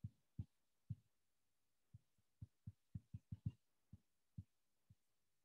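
Faint, dull taps of a stylus on a tablet screen during handwriting, about a dozen at irregular intervals, coming quickest together around the middle.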